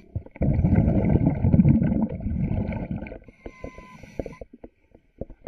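Scuba diver's exhaled bubbles from the regulator, heard underwater: a dense bubbling rush starting about half a second in and lasting about two and a half seconds, then a softer hiss and scattered bubble clicks.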